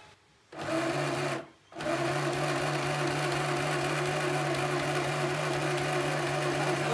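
Small electric household sewing machine stitching fabric: it runs for about a second, stops briefly, then starts again and runs with a steady, even whir.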